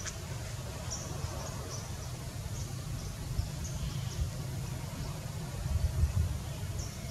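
Outdoor forest ambience: a steady low rumble with short high-pitched chirps every second or so.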